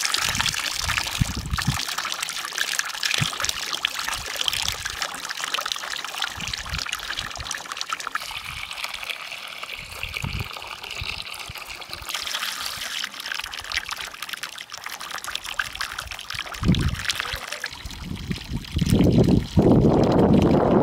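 Water pouring steadily from a pipe spout and splashing into a metal bowl and a brass basin as grain is rinsed under the stream. For the last couple of seconds the splashing grows louder and deeper, with the stream falling straight into the basin.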